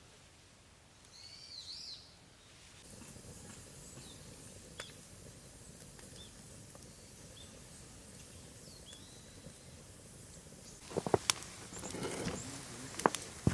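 Scattered short bird chirps over a steady outdoor hiss. Near the end comes a run of sharp cracks and knocks, the loudest sounds here.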